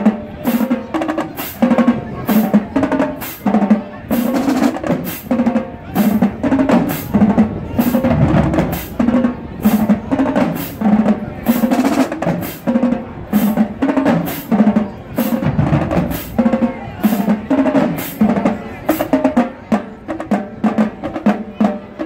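Marching band drumline playing a cadence: snare, tenor and bass drums keep a steady beat of sharp strokes about twice a second, with bass-drum thuds.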